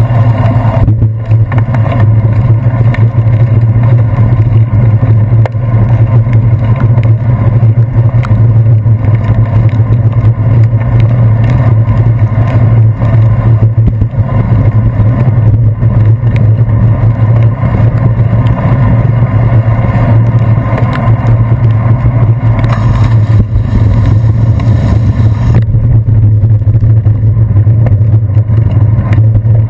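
Steady, loud, muffled rumble of a bicycle riding over wet city pavement, picked up by a handlebar-mounted action camera: road vibration and wind noise, with traffic mixed in. A brief hiss rises about three quarters of the way through.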